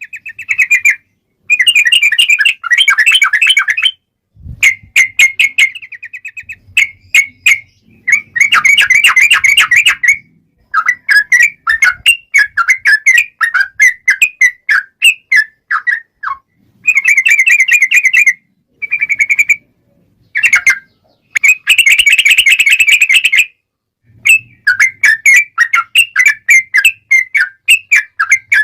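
Yellow-vented bulbul (trucukan) singing: loud bursts of rapid, bubbling, chattering notes, each phrase about one to two seconds long, with short pauses between phrases. This is the long, rapid-fire, combative 'ropel' song that is used to provoke other trucukan into singing.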